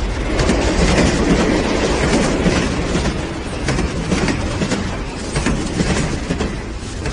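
Toy train rolling along its track, a steady clatter of many small clicks that eases slightly near the end.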